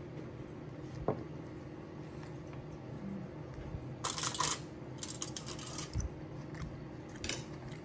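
Metal fork on a glass plate: a single light click about a second in, a short scrape about four seconds in, then scattered light clicks as a piece of steak is picked up.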